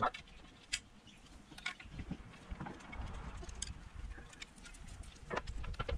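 Scattered light clicks and knocks, about half a dozen, as hydrofoil parts are handled and lined up for assembly, with a soft low rumble about halfway through.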